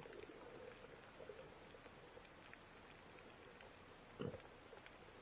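Faint underwater ambience picked up through an action camera's waterproof housing: a soft scattered crackle of tiny clicks over a low hum, with one dull knock about four seconds in.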